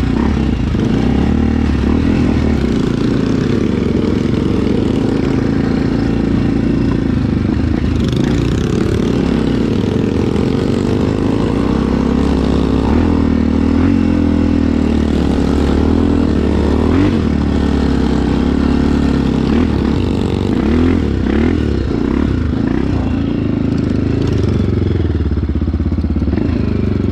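Small single-cylinder motorcycle engines running steadily at low revs as the trail bikes ride along, the engine note rising and falling a little with the throttle.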